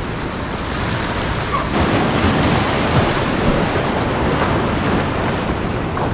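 Ocean surf surging and washing through a rocky gully, a steady rush of water that swells louder about two seconds in.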